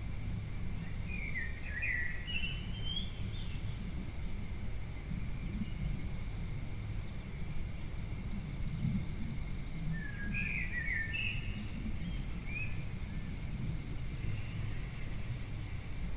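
Wild birds chirping and calling on and off, short separate calls with a quick rapid trill about halfway through, over a steady low background rumble.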